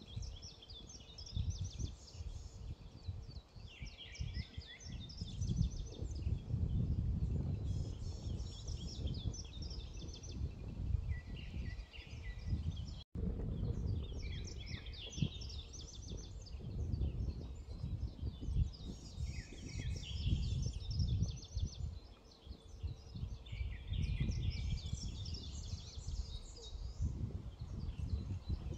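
Eurasian skylarks singing: long, near-continuous runs of rapid high warbling and trilling. Wind buffets the microphone with a gusty rumble, and the sound cuts out for an instant about halfway through.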